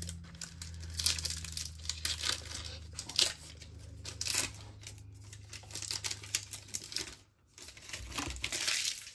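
Plastic wrapper of a baseball card pack being torn open and crinkled by hand. It gives irregular crackles, several of them louder than the rest.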